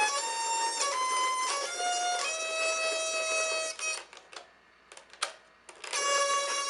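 UGears wooden hurdy-gurdy kit playing a slow run of single notes with a bright, buzzy tone, both strings tuned to D. About four seconds in the notes stop for roughly two seconds, with a few sharp clicks, then the playing starts again.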